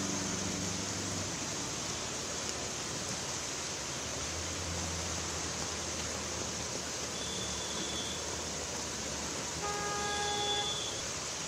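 Steady hiss of heavy rain over a waterlogged street, with the low drone of passing scooter and motorcycle engines. A vehicle horn honks faintly about seven seconds in, then more clearly for about a second near the end.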